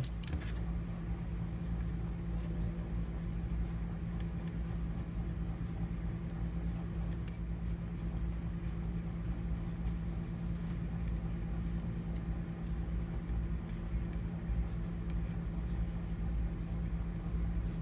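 Faint, scattered small ticks and scrapes of a hex (Allen) key turning small screws into the metal feed wheel cover of a GAPCO P331 tool, over a steady low hum.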